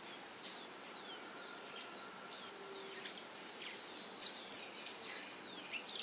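Saffron finches chirping: short high notes that drop in pitch, scattered throughout, with a brief run of louder, sharper chirps about four seconds in.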